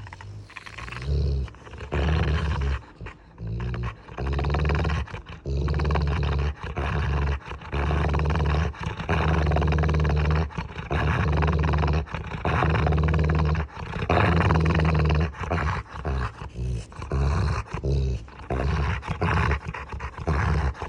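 Pit bull growling in repeated loud bouts of about one to two seconds each, with short breaks between them: a threatening, play-aggressive noise.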